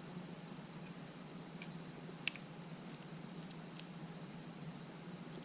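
A few small, sharp clicks and ticks of a thin tool working along the camera's LCD frame to free the adhesive, the loudest a little past two seconds in, over a steady low hum.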